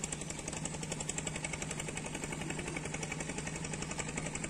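Small boat engine running steadily with a fast, even chugging.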